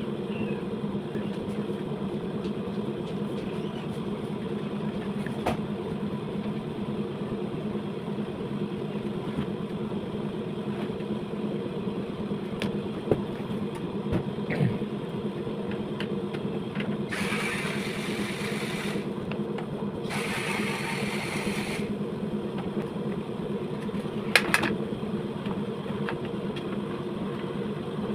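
A motor running steadily with an even hum, with two hissing bursts of about two seconds each a little past the middle and a few light clicks.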